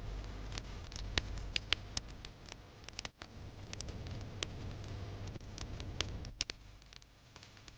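Wood fire crackling in a fireplace: irregular sharp pops and snaps, several close together at times, over a low steady rumble.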